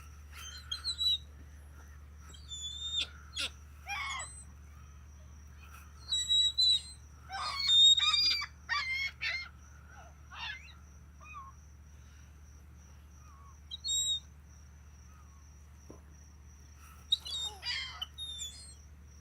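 Gulls calling: a string of short squawking cries with sliding pitch, bunched in flurries with short gaps between them, over a faint steady high tone and low background rumble.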